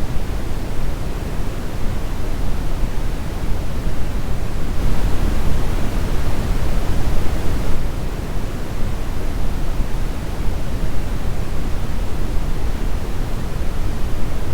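Steady brown noise: an even, deep rushing hiss, heaviest in the low end. It brightens slightly in the upper range for a few seconds about five seconds in.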